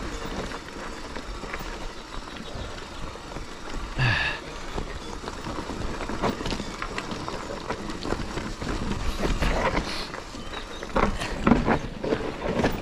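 Mountain bike rolling over a rough trail: tyres crunching on loose stones and the bike rattling, with a continual patter of small knocks. There is one brief high squeal about four seconds in.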